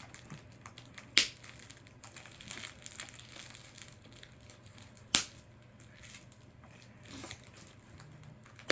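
Toy packaging being handled and pulled apart: light crinkling and rustling, with two sharp snaps, about a second in and about five seconds in.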